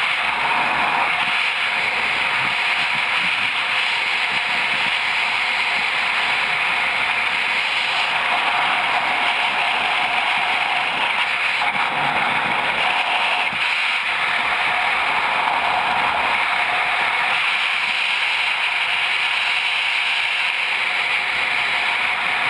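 Steady rush of wind buffeting the camera microphone during a skydiver's freefall, a loud, even roar of air that swells and eases slightly.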